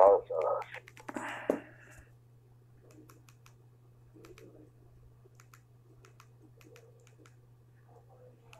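Buttons of a handheld keypad mobile phone being pressed: a string of faint, irregular clicks, with a low steady hum underneath.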